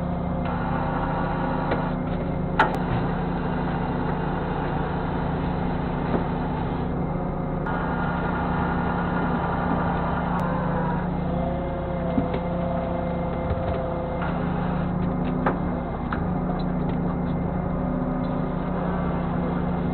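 Fishing boat's engine and hydraulic deck machinery running steadily through the net haul, with a higher tone that shifts in pitch around the middle and a few sharp knocks.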